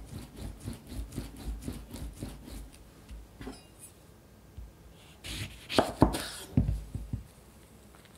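A whole lemon rolled back and forth under a hand on a wooden cutting board, a soft, even rubbing at about two or three strokes a second, which loosens the juice before squeezing. About five seconds in come a few louder knocks and scrapes against the board.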